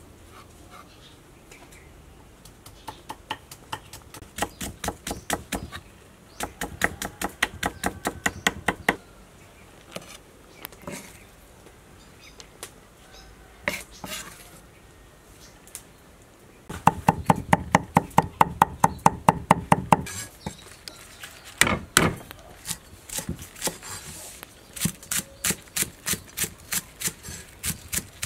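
Cleaver chopping vegetables on a wooden cutting board: runs of quick, even knocks, about four or five a second, broken by short pauses.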